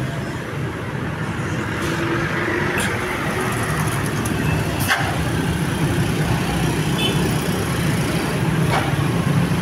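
Road vehicle engine running with a steady low rumble amid traffic noise, with a few faint clicks and no horn sounding.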